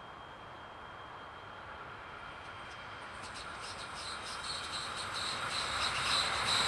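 A train approaching and growing steadily louder. From about halfway through, a high-pitched, rapidly chattering hiss from the rails builds up ahead of it.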